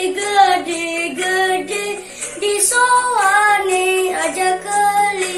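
A boy singing a Balinese sekar rare children's song, his voice sliding and wavering through ornamented held notes.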